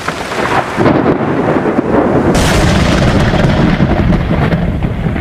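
Thunder sound effect: a loud, continuous rolling rumble, with a sharper crack about two and a half seconds in.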